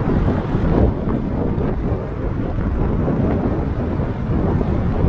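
Wind buffeting the microphone of a camera on a moving car, a steady low rumble mixed with road and traffic noise.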